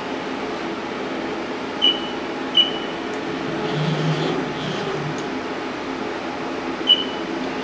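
Steady hum of a Haas VF2-SS vertical machining center standing powered up, with three short high beeps from its control keypad: two about two seconds in, a little over half a second apart, and one near the end.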